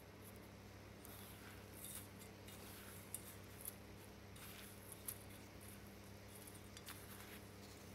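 Faint scratchy rustling and a few small clicks as a hand presses and turns chicken in crushed wheat biscuit crumbs in a stainless steel bowl, over a steady low hum.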